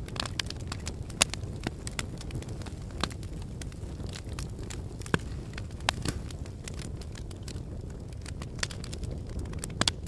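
Wood fire in a fireplace crackling: irregular sharp pops and snaps over a steady low rumble. The loudest pops come about a second in, near the middle and near the end.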